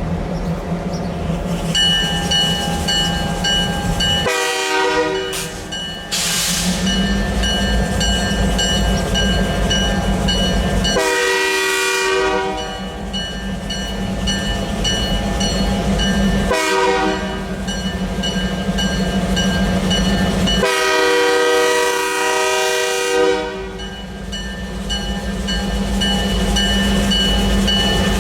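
Diesel locomotives (EMD GP38-2s) pulling away under power with a steady engine drone, while the lead unit sounds its multi-chime air horn four times: short, long, short, then a longest blast. A steady high ringing, like a bell, runs underneath.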